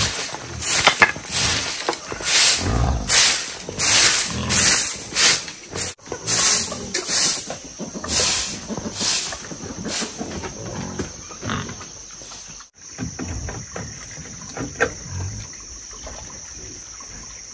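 A stiff twig broom sweeping bare dirt ground, with brisk scratchy strokes about two a second; the sweeping stops after about ten seconds, leaving a steady high-pitched hum and a few faint sounds.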